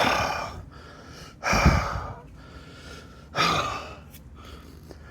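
A man's exasperated sighs and huffs, three in a row, a second or two apart.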